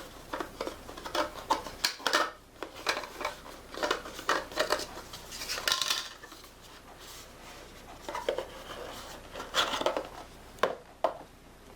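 Packaging and small hard items being handled while a box is unpacked: irregular light clicks, taps and rustles, easing off for a moment in the middle.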